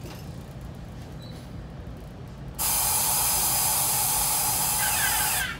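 A loud hiss of compressed air from the NJ Transit train, starting suddenly about two and a half seconds in and cut off sharply about three seconds later, over the train's low running rumble.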